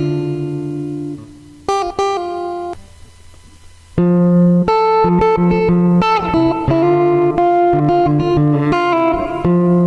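Tagima T-635 Strat-style electric guitar played through a Zoom G1 Four multi-effects pedal. A held chord and a short stab, a pause of about a second, then loud sustained notes and riffs with some bends from about four seconds in.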